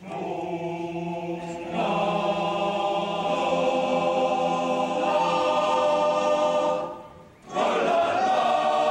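Men's choir singing unaccompanied in sustained chords. It comes in softly, swells about two seconds in, and breaks off briefly about seven seconds in before the next phrase.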